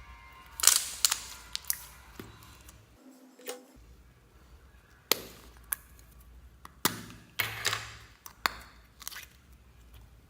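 Slime being squeezed and worked by hand, giving a series of sharp, irregular pops and clicks, the loudest a little under a second in.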